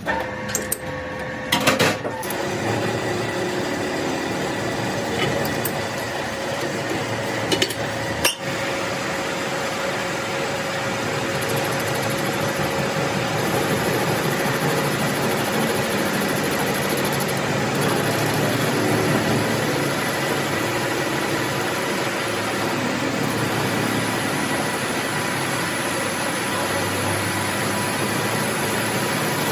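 A workshop machine running steadily with a constant whine, with a few sharp clicks near the start and again about eight seconds in.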